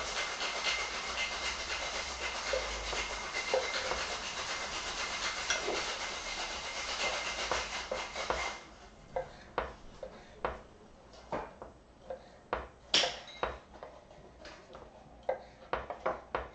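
A steady hiss with a thin high tone in it runs for the first eight seconds or so, then cuts off suddenly. After it, a kitchen knife taps and clicks on a cutting board as shrimp are cut into chunks, with one sharper click about thirteen seconds in.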